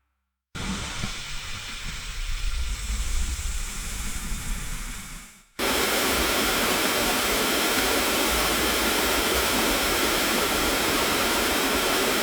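Steady hissing noise in two stretches: an uneven one starting about half a second in, then, after a brief drop near five and a half seconds, a louder, very even hiss.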